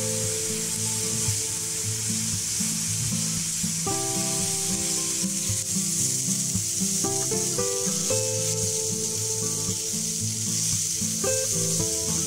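Food frying in a pan: a steady sizzle, with background music playing underneath.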